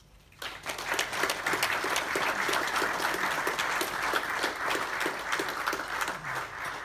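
Audience applauding: dense clapping from a room full of people that starts about half a second in and begins to fade near the end.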